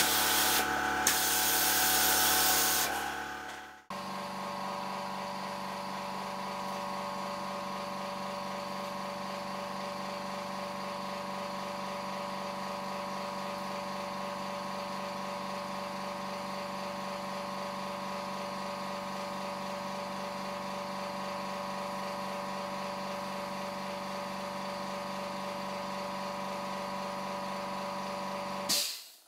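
A spray gun hissing as it sprays water-based varnish, with a few clicks, for the first few seconds. It then cuts off sharply into a steady machine hum with several fixed tones, which runs unchanged until it stops suddenly near the end.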